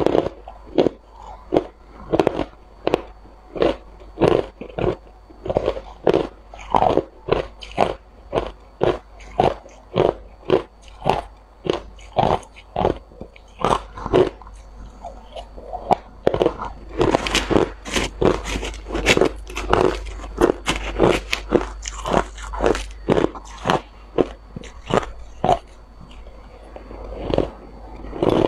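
Crushed clear ice being bitten and chewed close up: a steady run of sharp, crisp crunches, about two a second, coming faster and louder for a few seconds just past the middle.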